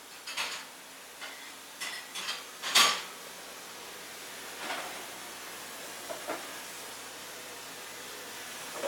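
Dishes clinking and clattering in a kitchen sink being washed by hand: several short knocks in the first three seconds, the loudest about three seconds in, with a couple of fainter ones later, over a steady hiss.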